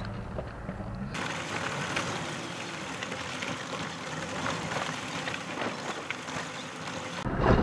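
Steady wind and road rush heard from a camera on the hood of a vehicle driving a dirt track: an even, airy hiss with little low rumble. In the first second it is the cab's low engine drone instead, and that drone returns near the end.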